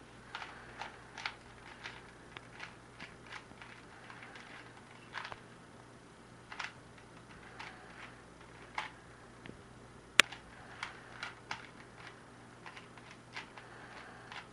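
Plastic Rubik's Cube layers being twisted by hand during a solve: irregular light clicks and clacks, sometimes several in a quick run, with one sharp click about ten seconds in.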